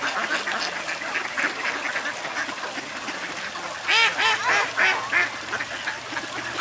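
A flock of mallards and Canada geese calling: a steady chatter of quacks, with a run of several louder calls about four seconds in.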